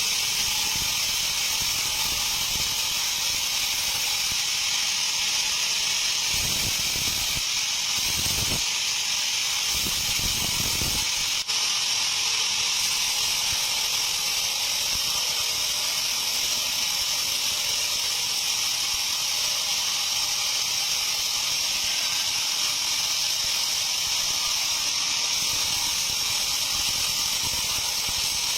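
Band sawmill blade cutting through a teak log: a steady high hiss, with a brief dropout about eleven and a half seconds in.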